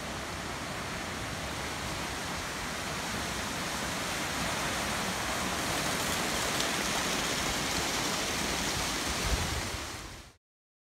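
Floodwater rushing down a swollen river channel: a steady, even rush of churning water, with a brief low bump near the end before it cuts off suddenly.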